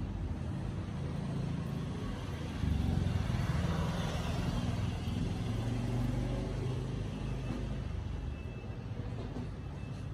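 A low motor rumble, like a vehicle running nearby. It swells about two and a half seconds in and eases off after about seven seconds.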